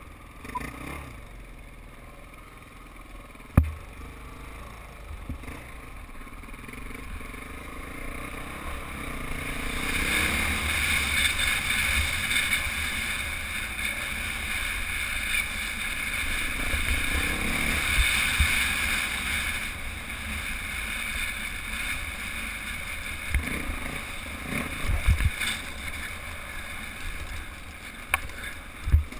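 Dirt bike engine running and revving while riding a dirt track. It grows louder about ten seconds in, and there are a few low thumps near the end.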